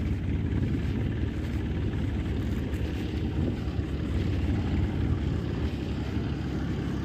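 A groundnut thresher running steadily: a continuous low mechanical drone that holds even without any break.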